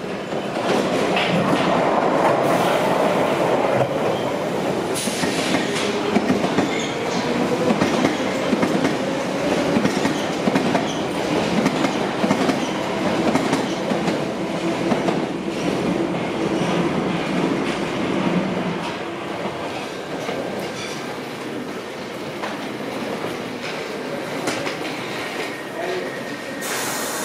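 A London Underground Piccadilly line 1973 Tube Stock train runs over the junction points and crossings, its wheels clattering over the rail joints with some squeal from the wheels. The sound is loud for the first twenty seconds or so, then dies away as the train moves off.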